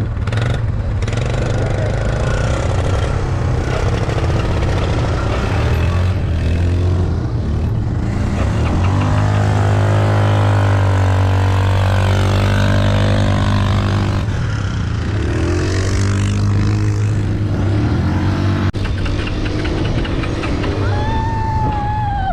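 ATV engine running under way, holding a steady pitch for several seconds in the middle, with rough noise over it throughout.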